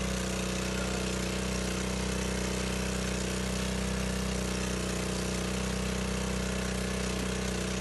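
Small engine running steadily at constant speed, driving the mud pump that pushes drilling fluid through the hose down the borehole drill pipe.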